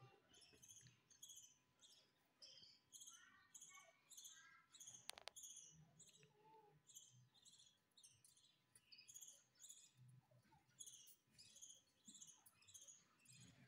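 Faint high chirping from caged birds in an aviary, short notes repeating about twice a second, with a few lower calls mixed in. A single sharp click about five seconds in.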